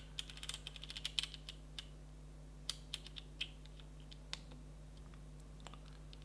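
Panasonic GH5's rear control dial and MENU/SET button clicking under a thumb while scrolling a menu list. There is a quick run of quiet clicks in the first second and a half, then scattered single clicks.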